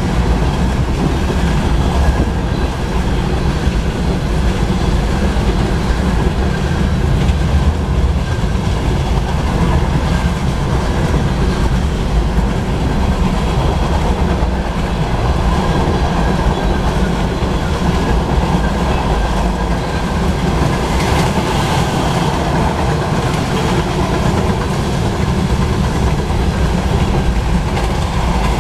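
Freight cars of a long mixed freight train, covered hoppers and tank cars, rolling past close by: a steady, loud rumble of steel wheels on rail.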